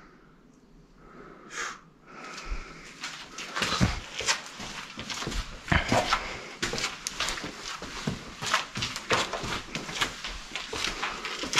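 Footsteps on gravel and loose debris on a concrete tunnel floor, starting about three seconds in and going on at a walking pace.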